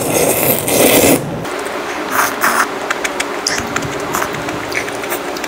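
A person slurping a mouthful of mala tang noodles loudly for about the first second. After that come quieter chewing clicks and short slurps of spicy broth from a spoon.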